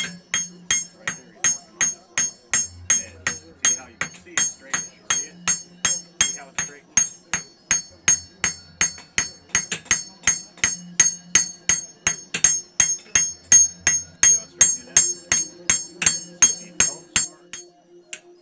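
A hand hammer forging a glowing knife blade on an anvil in a steady rhythm, a little over two blows a second, each blow ringing bright off the anvil. The hammering stops shortly before the end.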